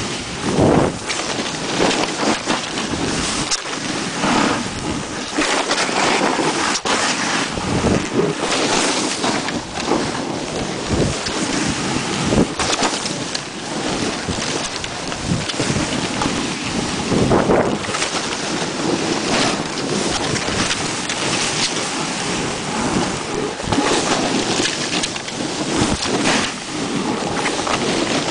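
Wind rushing over the camera microphone during a fast snowboard run, with the board's edge scraping over packed snow. The noise swells and fades every second or two as the rider turns.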